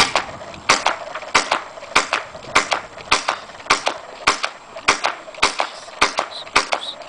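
Airsoft pistol firing BBs shot after shot in a steady rhythm, about one sharp crack every 0.6 seconds.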